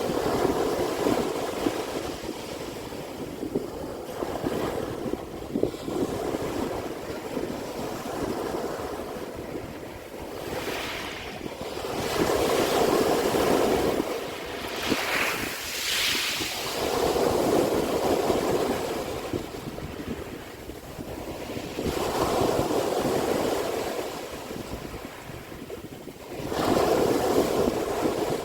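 Sea waves breaking and washing up the shore, with a louder surge of surf every few seconds.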